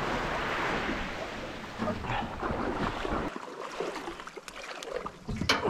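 Water washing at the shore, with wind on the microphone, beside a beached aluminium boat. It gives way to light knocks and rustles as dry bags are handled aboard, with a few sharper knocks near the end.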